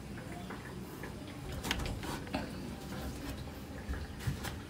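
Scattered light ticks and knocks of handling in a cramped roof space, the sharpest a couple of knocks near the end as hands take hold of the black plastic water pipe at its joint.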